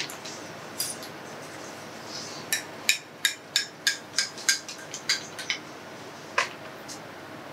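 Metal spoon stirring a drink in a glass tumbler, clinking against the glass about ten times at three to four strikes a second, then once more about a second later.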